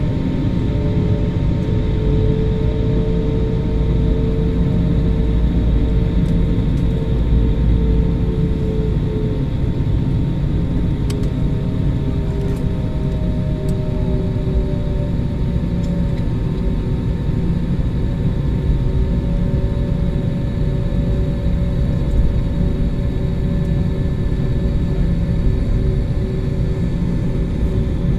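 Jet airliner engines heard from inside the passenger cabin during takeoff: a loud, steady low rumble with a few faint held tones over it.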